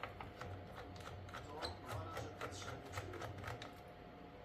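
Quick, irregular light clicks and taps of small tools and plastic laptop parts being handled, over faint background music.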